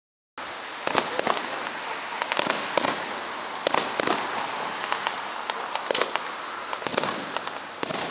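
Aerial fireworks bursting: a dense, continuous crackle of small pops with a number of louder sharp bangs scattered through it.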